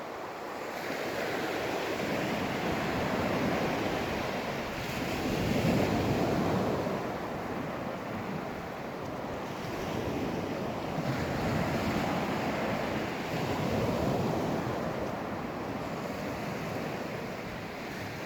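Sea waves breaking and washing up a sandy beach, the surf rising and falling in slow surges every few seconds.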